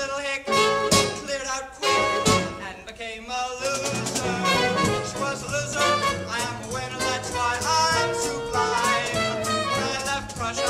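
Brass-led pit band playing an instrumental passage in a swing style, from a 1960s stage-musical cast recording ripped from vinyl. It opens with a few sharp accented hits, then settles into continuous playing after about three and a half seconds.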